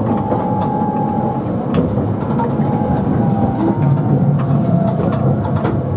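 Nagasaki Electric Tramway 3000-series streetcar running along street track, heard from inside the car: a steady rumble with scattered clicks and rattles, and a steady whine in the first second and a half.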